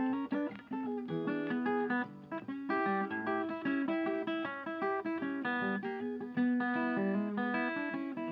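Background music: an acoustic guitar picking a quick, continuous run of notes.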